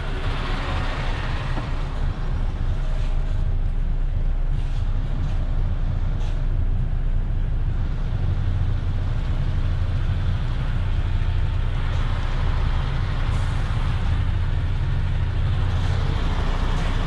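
Truck's diesel engine running steadily at low revs, heard from inside the cab as the truck slowly reverses with its trailer.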